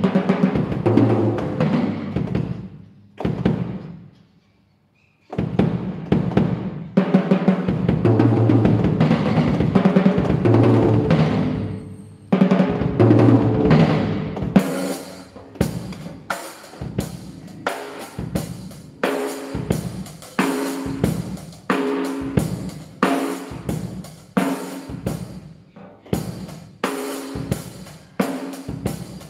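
Drum-kit toms played with sticks to try out a newly fitted 12-inch Remo drum head. Fast rolls break off briefly about four seconds in and pick up again. From about halfway through come separate strokes, roughly two a second, each ringing with a clear pitch.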